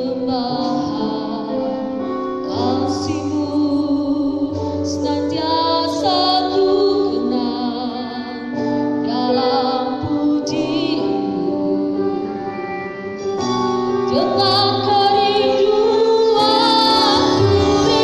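Background music: a song with a female singing voice over sustained instrumental chords.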